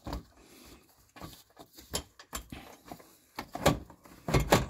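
Gloved hands pushing and shifting the plastic underbody splash shield of a 2015 Ford Mustang, making a series of plastic knocks and clicks; the two loudest come near the end.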